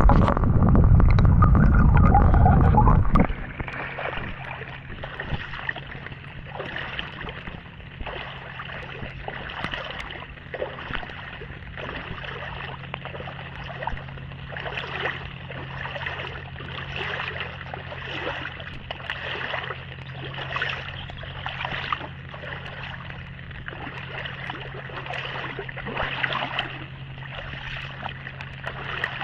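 Footsteps at a steady walking pace, a short noisy stroke about once a second, over a steady low hum. The first few seconds are a loud low rumble.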